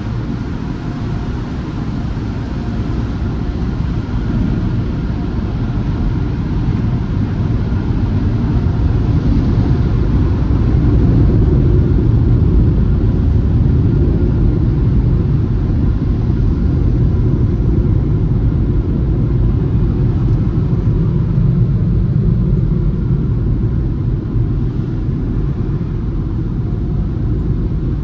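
Peco automatic car wash equipment heard from inside the car's cabin: a steady low rumble of water spray and air blowers blasting the body and glass. It grows louder from about eight seconds in.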